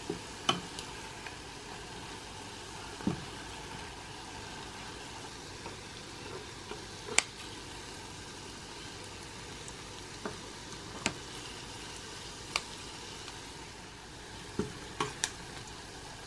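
Dough balls deep-frying in a pot of vegetable oil: a steady sizzle with a few sharp clicks scattered through it.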